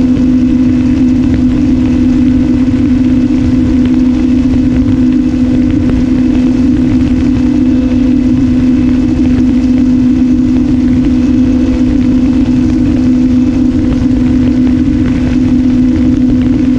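Onboard sound of an RMRC Strix Strato-Surfer in cruise: its electric motor and propeller running at a steady, unchanging pitch, with wind rumbling over the airframe-mounted camera.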